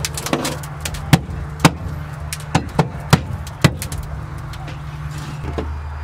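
A series of sharp knocks and clicks on a car's bare sheet-metal floor pan, about six in under three seconds, as dry ice is laid on the sound-deadening to freeze it loose. A steady low hum runs underneath.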